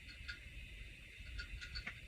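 Faint forest ambience: a steady high-pitched insect hum with several short chirps, typical of small birds, over a low rumble of wind.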